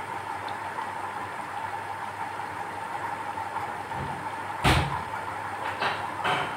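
Battered mango pakoras deep-frying in hot oil in a pan, a steady sizzle. A sharp knock comes a little past halfway, then a few lighter clicks near the end.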